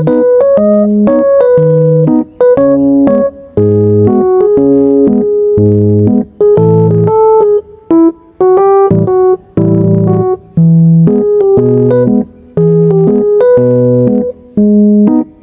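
Background music led by a keyboard, playing a melody over chords, with a few brief breaks between phrases.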